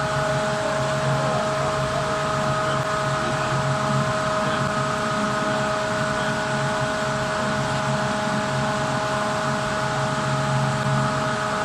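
Steady drone of forging-shop machinery, with several constant whining tones over a continuous noise and no hammer blows.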